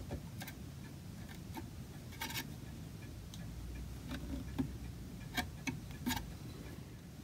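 A carving chisel paring the edges of a pierced oak fret by hand: scattered, irregular sharp little clicks as the blade cuts, over a low steady hum.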